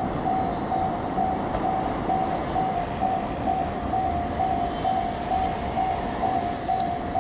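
Japanese level-crossing warning bell ringing steadily, a little over two strokes a second, over the steady running noise of a freight train hauled by a JR Freight ED76 electric locomotive.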